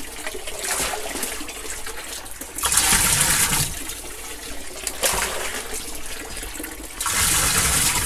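Water poured from a plastic dipper into the partly filled wash tub of a twin-tub washing machine, splashing in several pours. The loudest pours come about three seconds in and near the end.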